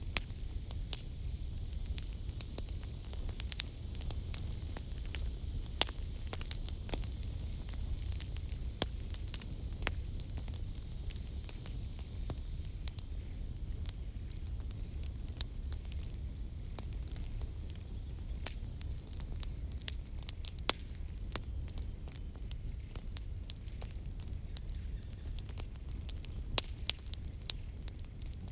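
Wood fire crackling, with irregular sharp pops and snaps over a low steady rumble of flame.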